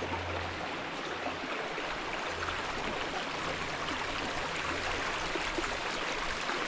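Small creek's water running steadily through a shallow pool.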